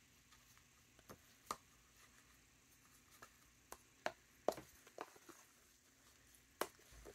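Faint, irregular clicks and taps of a metal spoon against a plastic tub as it presses fabric down into dye solution.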